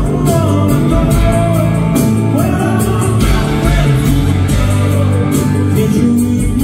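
Live rock band playing: strummed acoustic guitar and electric guitar over drums, with a male lead vocal sung at the mic.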